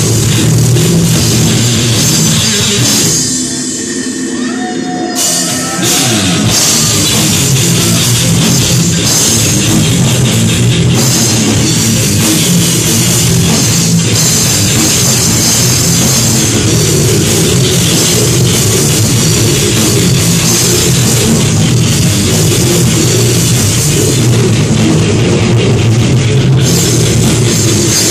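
Heavy metal band playing live and loud: distorted guitars, bass and pounding drums. The band thins out briefly about three seconds in, then comes back in at full force about two seconds later.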